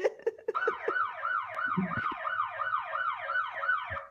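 Electronic time's-up alarm sound effect: a warbling, siren-like tone that sweeps up and down about three times a second, starting about half a second in and cutting off abruptly at the end. It signals that the speaker's countdown has run out.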